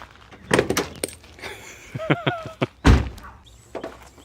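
A few knocks and thuds, the loudest a heavy thud about three seconds in, with a brief squeak just after two seconds.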